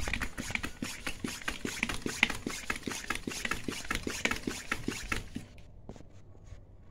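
Hand floor pump worked in quick, even strokes, pushing air into a wheelbarrow's pneumatic tyre; the strokes stop about five seconds in.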